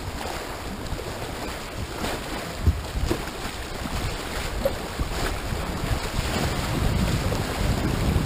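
Fast creek water rushing around a whitewater kayak through a riffle, with wind buffeting the microphone and a sharp knock about two and a half seconds in. The rush grows louder toward the end as the boat nears whitewater.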